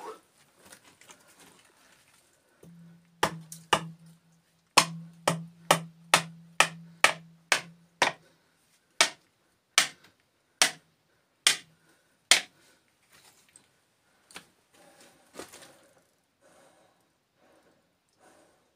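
Hand hammer blows breaking rock in a dug trench. About fifteen sharp strikes come quickly at first, about two a second, then slow to one a second or so before stopping.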